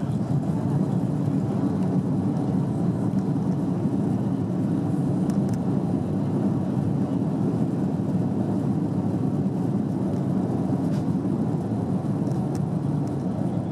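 Steady low rumble inside the cabin of an Airbus A330 airliner rolling along the ground after landing.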